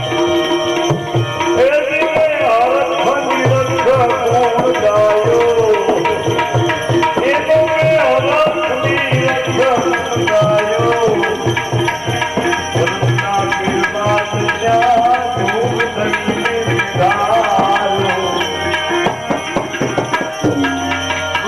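Bhajan music: tabla playing a steady beat under a melody line that bends and glides in pitch.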